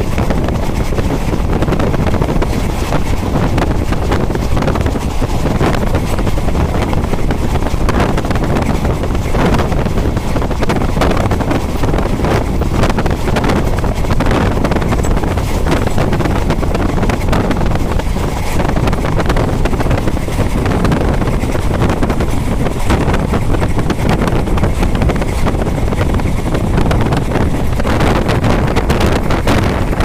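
Wind rushing over the microphone at the window of a moving train, over the steady low rumble of the train running along the track.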